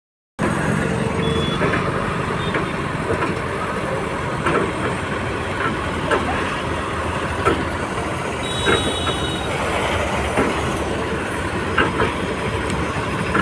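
Heavy construction machinery running steadily during a concrete pile pour, with irregular metallic clanks and knocks over the engine noise and a brief high tone about eight and a half seconds in.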